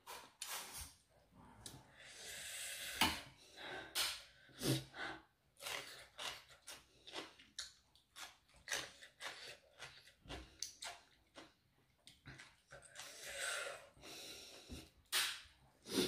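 Close eating sounds of spicy cucumber salad: a run of short, sharp chewing and mouth smacks, with two longer hissing sounds, about two seconds in and again near thirteen seconds.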